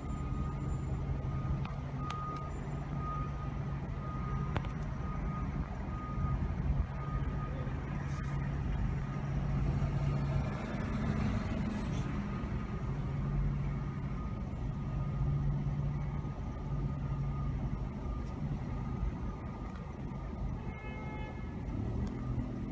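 Fire truck's diesel engine running steadily as the apparatus backs in, with a backup alarm beeping during the first half.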